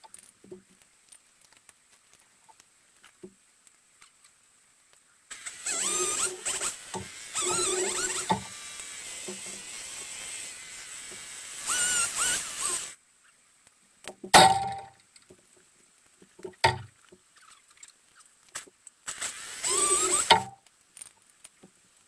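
Chainsaw cutting a birch trunk, the audio sped up: one run of the saw lasting several seconds, then a loud sharp knock, a smaller knock, and a short second burst of the saw near the end.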